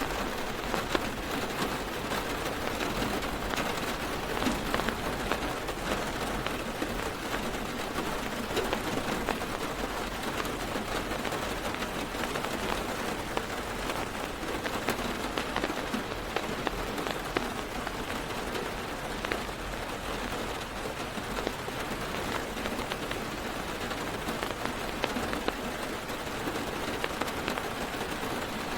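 Heavy rain falling on a car's roof and windows, heard from inside the car: a steady hiss dense with the ticks of single drops.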